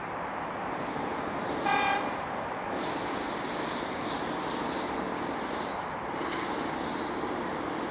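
Approaching EP20 electric locomotive and train with a steady rumble, sounding one short, high-pitched horn toot about two seconds in.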